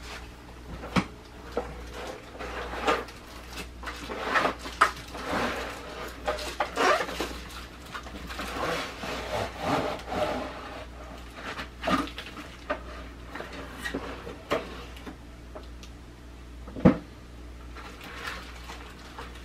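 Cardboard box and packaging being handled as an aquarium LED light fixture is unpacked: irregular rustling and scraping of cardboard and plastic wrap with scattered light knocks, and one sharp knock near the end.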